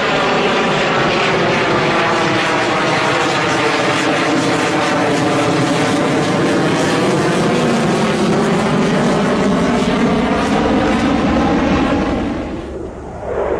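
Fighter jet passing low overhead: a loud, steady roar with a sweeping, phasing tone that dips and rises as it goes by. About a second before the end it falls away briefly and a new roar begins.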